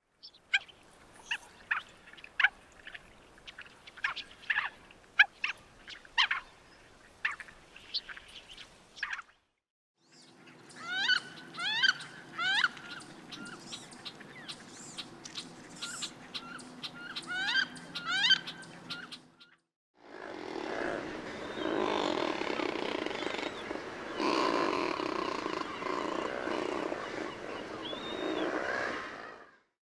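Three bird recordings in turn. First a mandarin duck gives short, sharp calls. Then a wood duck gives rising whistled calls over a low steady hum. Last comes a dense, louder chorus of razorbill growling calls.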